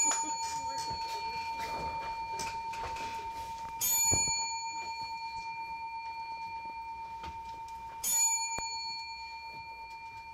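A bell struck three times, about four seconds apart, each strike ringing on and fading slowly.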